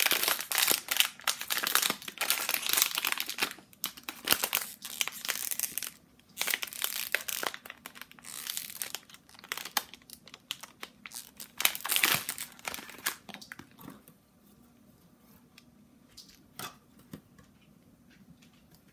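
Kidrobot foil blind-box bag crinkling as it is torn open and handled, in dense crackling bursts. Near the three-quarter mark it stops, and only a few faint clicks follow.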